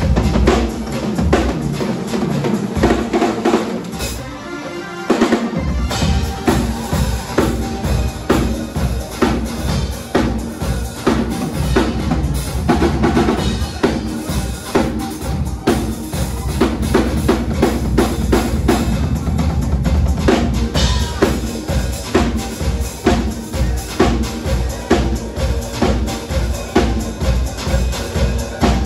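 Premier drum kit played fast and hard live, with dense rapid strikes on the drums and cymbals. After a brief lighter passage about four seconds in, the low end fills in continuously from about six seconds on.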